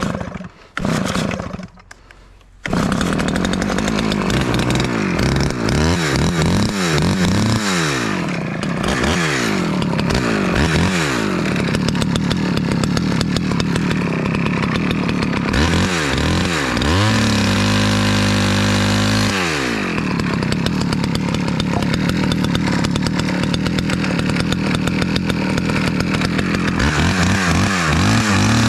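Small Stihl two-stroke chainsaw cutting ash wood: a few short bursts of engine noise, then from about two and a half seconds in it runs without a break, revved up and down again and again, held at high revs for a few seconds near the middle.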